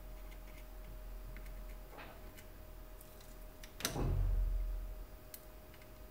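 Small ticks and clicks of soldering tools being handled over a circuit board. About four seconds in comes a sharp click, then a dull knock on the workbench that is the loudest sound.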